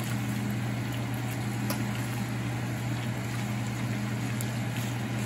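Bacon strips sizzling in a frying pan on high heat, over the steady hum of the range hood fan. A couple of light clicks come from forks against the pan.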